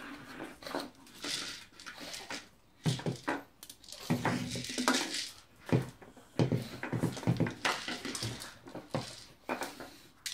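A plastic treat ball being pushed along by a pug's nose, knocking and clattering irregularly against wooden cabinet doors and a tiled floor.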